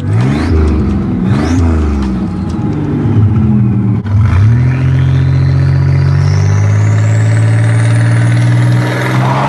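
Buick Grand National's turbocharged V6 revved in a few quick blips, then held at a steady raised speed from about four seconds in, while a high whine climbs steadily in pitch.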